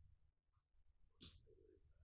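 Near silence: faint room tone, with one brief faint hiss a little over a second in and a faint low murmur after it.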